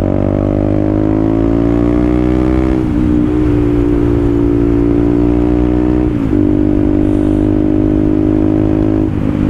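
Motorcycle engine pulling in gear, rising in pitch for about three seconds, then dropping suddenly at an upshift and running at a steady pitch, with a second small drop about six seconds in.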